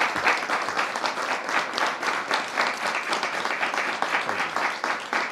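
Audience applauding, many hands clapping densely and steadily.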